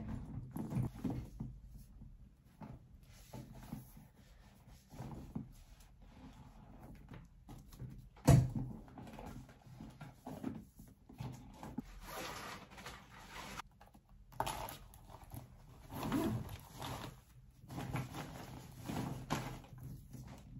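A handbag being packed: rustling and handling noises as a book and a makeup pouch go into a tote bag, with soft knocks throughout and one sharp knock about eight seconds in.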